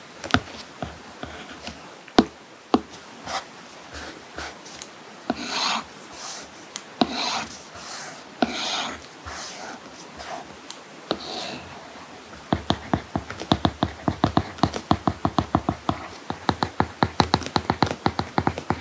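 Apple Pencil tip tapping and scratching on an iPad fitted with a paper-like matte screen protector. First come scattered taps and short scratchy strokes, then, about two-thirds of the way through, a quick run of clicking taps as small handwriting is written.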